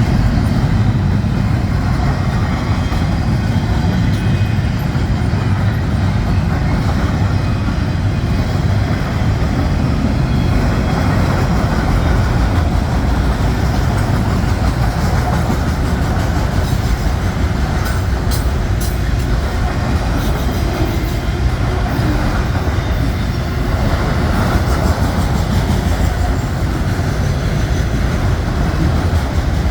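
Norfolk Southern mixed freight train rolling past: a steady, loud rumble of wheels on rails, with a few sharp clicks about two-thirds of the way through.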